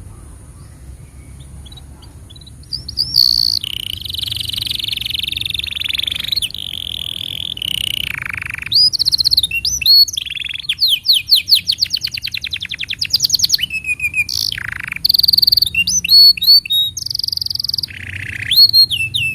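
Domestic canary singing a long, varied song that begins about three seconds in: held buzzy notes, a fast run of repeated notes, and rising and falling whistles, over a faint low hum.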